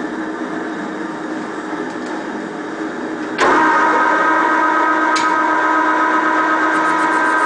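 A 1955 Meuser metal lathe running with a steady mechanical hum. About three and a half seconds in, the sound steps up suddenly and a steady gear whine joins it as the aluminium workpiece spins in the chuck.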